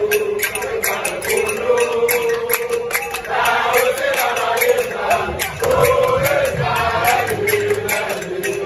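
A crowd of men chanting a song together, holding long notes, with many hands clapping along.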